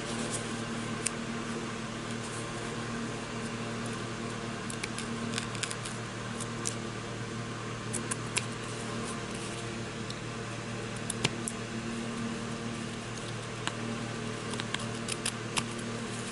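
Small Fiskars detail scissors snipping through felt along a cardboard edge: scattered short, soft clicks of the blades closing. A steady low hum runs underneath.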